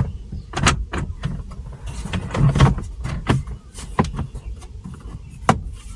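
Plastic dash trim and mounting parts being handled and pressed into place, giving irregular sharp clicks and knocks, the sharpest about five and a half seconds in.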